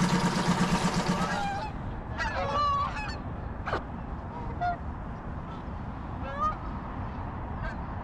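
Tohatsu 6 hp four-stroke outboard idling in a test barrel, cut off about a second and a half in. Then geese honk several times, one call after another, over a low steady background noise.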